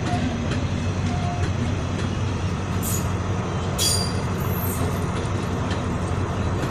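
Passenger train coaches rolling past on the rails with a steady low rumble and hum. A few short high screeches come about halfway through and again near the end.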